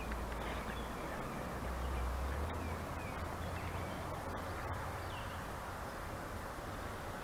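Lakeside outdoor ambience: a steady hiss with a low rumble on the microphone, and faint short bird chirps every second or so.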